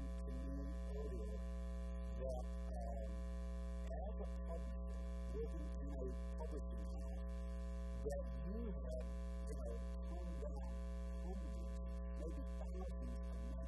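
Steady electrical mains hum with a buzzing stack of overtones, with a man's voice talking faintly beneath it.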